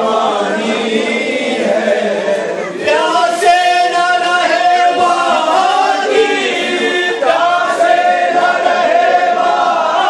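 Many men's voices chanting a mourning lament together in unison. The held notes come in long phrases, with fresh phrases starting about three seconds in and again around seven seconds.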